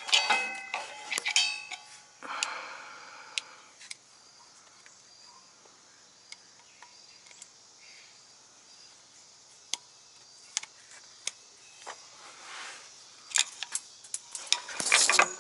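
Metal hand tools and parts clinking and clanking, with ringing clinks at the start, a few scattered ticks, and a louder run of scraping and knocking near the end.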